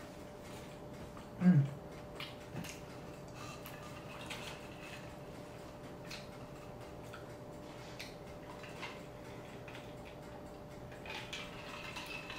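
Quiet eating sounds: soft clicks and ticks of chewing and mouth noises, with a short low vocal 'mm' falling in pitch about one and a half seconds in. A sip from a glass comes around the middle, over a faint steady hum.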